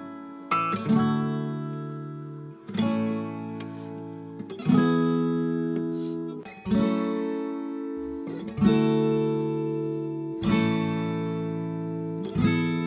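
Background music: an acoustic guitar strumming chords, a new chord about every two seconds, each left to ring and fade.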